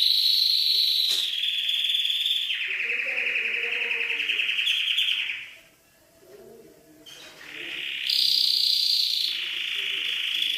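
Domestic canary singing long, rapid trilled phrases, breaking off for about two seconds midway before starting again.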